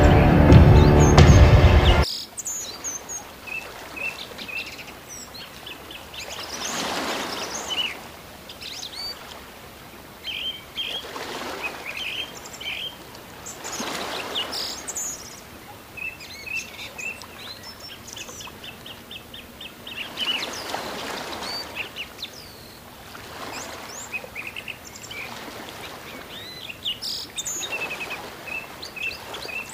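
Music cuts off about two seconds in, giving way to small birds chirping and twittering in quick, high, repeated calls. Beneath them is a soft rushing that swells and fades every few seconds.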